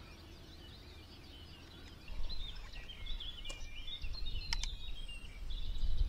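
Small birds chirping and singing in a dawn chorus, starting about two seconds in, over a low rumble, with a couple of sharp clicks about four and a half seconds in.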